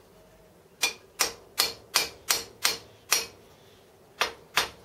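Hammer blows on a flat steel motor-mount bracket clamped in a bench vise, bending its lower 20 mm over. About seven sharp metallic strikes come quickly, beginning about a second in, then a short pause and two more.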